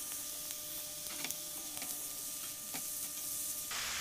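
Pork belly, squid and dried tofu strips sizzling in a hot oiled frying pan while being stirred with a wooden spatula, with a few light taps of the spatula.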